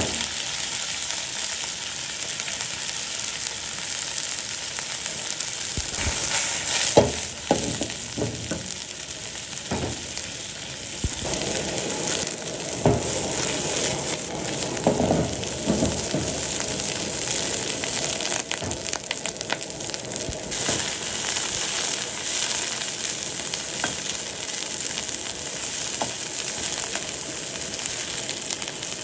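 Food sizzling as it fries in a hot pan, with a run of knocks and scrapes from a cooking utensil stirring it between about six and sixteen seconds in.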